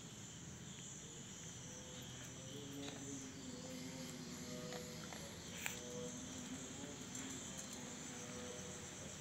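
Steady chirring of insects, with a single sharp click a little past halfway.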